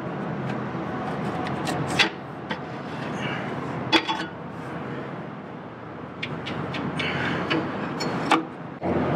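Hands working a fuel pickup-tube fitting and its blue vent tube on top of a truck's aluminium diesel tank: scattered clicks and rubbing, a few sharp knocks spaced a couple of seconds apart, over a steady background noise.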